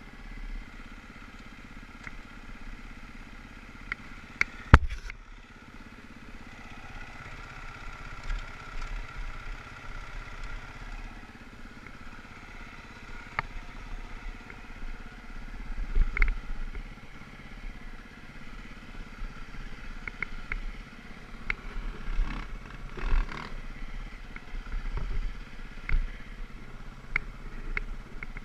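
Off-road motorcycle engine running at low, uneven revs as the bike crawls over a rocky trail, with scattered sharp knocks and clatter from the bike jolting over rocks; the loudest knock comes about five seconds in.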